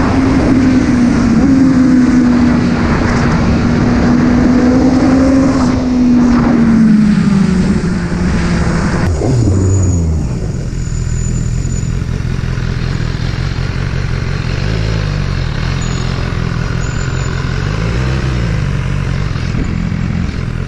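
BMW motorcycle engine running steadily under way, with wind rush, then its note falls as the bike slows. About nine seconds in, the revs drop sharply to a low, steady idle, and the pitch rises and falls twice in small blips.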